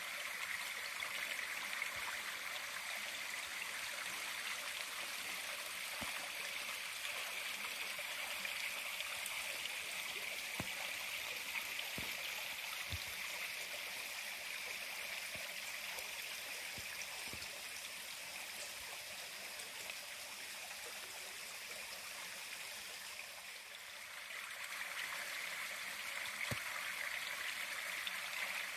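Steady rushing of a nearby stream, an even hiss of water that fades a little for a moment late on and then swells back. A few soft footfalls on the dirt trail are heard at irregular intervals.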